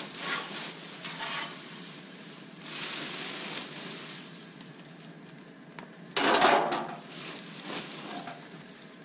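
Dry leaves and debris rustling and crackling as they are pushed by hand into a plastic bag, with the bag crinkling, in uneven bursts; the loudest rustle comes about six seconds in.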